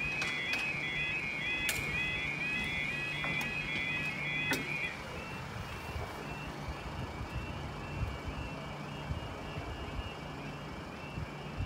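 UK level crossing warning alarm sounding its warbling two-tone yodel, about three cycles a second, while the barriers and pedestrian gates close. A few sharp clicks come in the first seconds, and about halfway through the alarm drops to a much fainter level.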